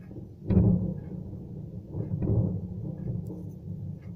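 Distant explosions at a burning ammunition depot: a sudden blast about half a second in that rolls off into a low rumble, then another swelling boom around two seconds in.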